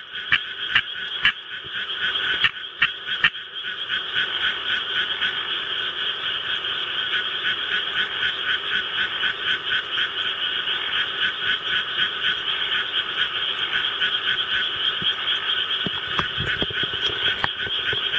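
Japanese tree frog calling: a few loud, separate croaks about three a second, then from about four seconds in a dense, continuous run of rapid croaks.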